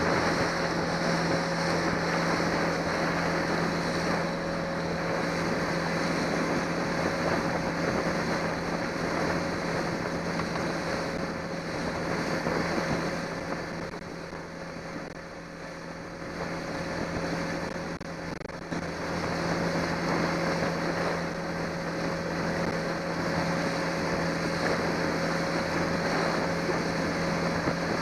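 Johnson 90 hp V4 two-stroke outboard running steadily with the boat underway, a constant engine hum over the rush of water and wind. It dips a little in loudness about halfway through, then comes back up.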